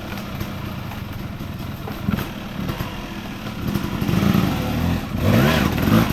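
Enduro dirt bike engine running, then revved harder about four seconds in, its pitch rising and falling as the rider works the throttle.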